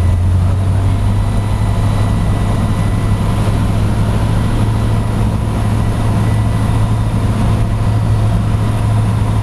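Cessna 150's Continental O-200 four-cylinder engine and propeller running with a steady, unchanging low drone, heard from inside the cockpit with a haze of airflow noise, on final approach to land.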